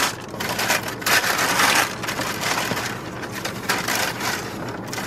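Wrapping paper crinkling and rustling as a sneaker is pulled out of it and handled.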